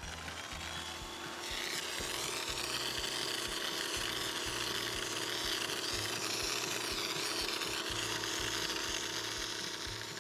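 Pressure washer running with a steady pump hum. About a second and a half in, the hiss of a light, low-pressure soap-tip spray comes in and keeps on as the water washes over the alligator skull.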